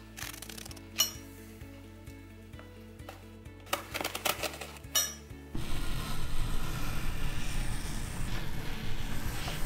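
Small steel fingertip claws stabbing into the skin of a mandarin and a bell pepper, giving a few sharp clicks and scrapes, then a long rasping scratch from about halfway in as they are dragged through a sheet of paper. Background music plays throughout.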